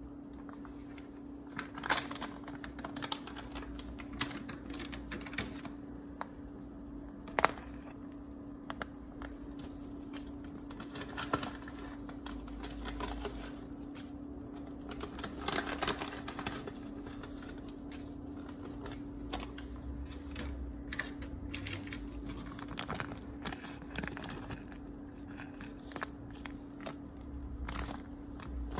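Irregular light clicks and knocks of kitchen utensils being handled while cooking, a few sharper knocks standing out, over a steady hum.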